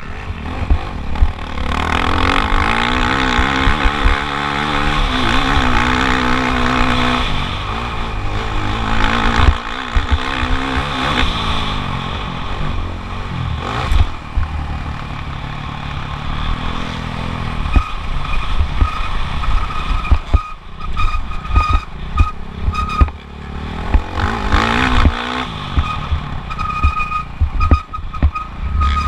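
Motocross bike engine revving up and down through the gears, its pitch climbing and dropping repeatedly, over heavy wind rumble and knocks on the microphone.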